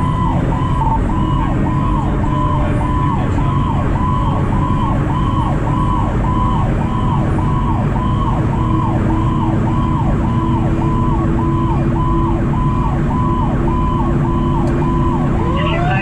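Fire engine's siren sounding in a rapid rising-and-falling cycle, about twice a second, over the truck's engine running under way. Another siren tone starts rising near the end.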